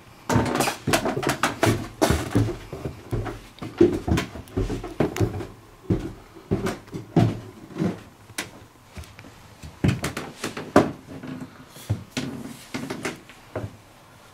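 A run of irregular knocks and thumps in a small room, several a second with short pauses, loudest near the start and around ten seconds in.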